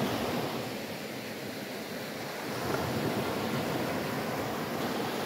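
Small waves on a calm sea breaking and washing up a sand-and-shingle beach, swelling louder about two and a half seconds in.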